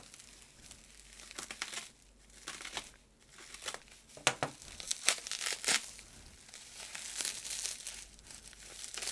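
Plastic packing wrap being crinkled and pulled off a toy, with irregular crackles and sharp snaps of plastic.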